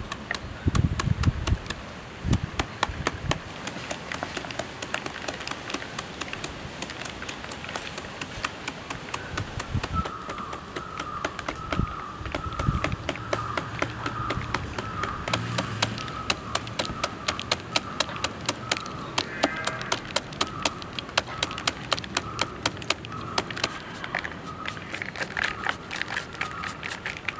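A knife blade chopping rapidly into a raw jackfruit held in the hand, mincing the flesh into fine shreds: a fast, steady run of sharp taps, several a second.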